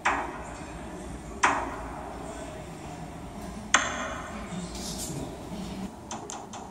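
Three sharp drum hits played through a Samsung phone's small speaker by the Virtual Drummer app in its Japanese taiko drum mode, each ringing briefly and sounding thin and tinny; the second comes about a second and a half after the first, the third about two seconds later.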